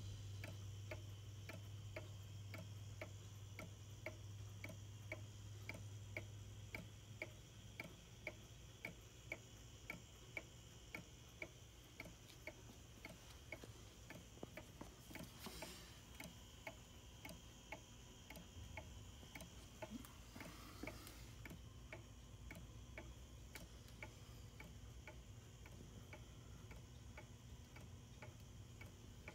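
Antique German Black Forest quail cuckoo clock ticking faintly and steadily: its escapement gives evenly spaced ticks as the pendulum swings.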